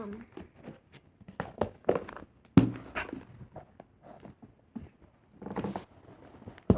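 Handling noises from slime play: scattered soft clicks and taps, with a sharper knock about two and a half seconds in and a short rustle near the end.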